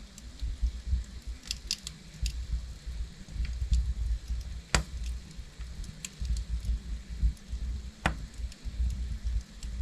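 Burning logs crackling in a fireplace: scattered sharp pops, with two louder snaps about five and eight seconds in, over a steady low rumble.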